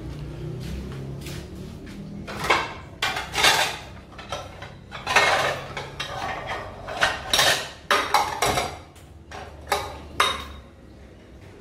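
Dishes and cutlery clattering and clinking as someone rummages through a rack of plates, bowls and utensils, in an irregular string of knocks over several seconds.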